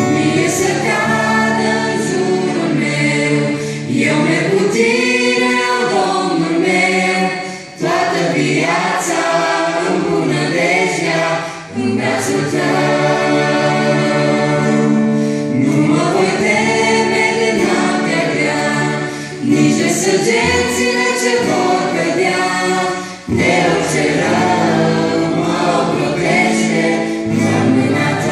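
Small mixed choir of young women and men singing a Christian worship song, with acoustic guitar, voices amplified through handheld microphones. The singing breaks off briefly between phrases three times.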